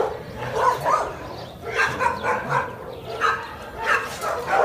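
Kenneled dogs barking, short barks repeating and overlapping throughout.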